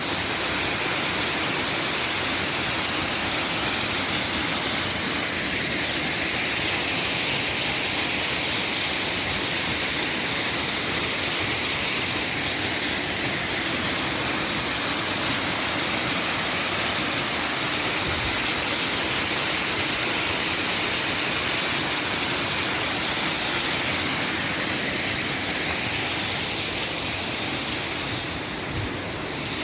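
Steady rain falling, an even, unbroken hiss that eases slightly near the end.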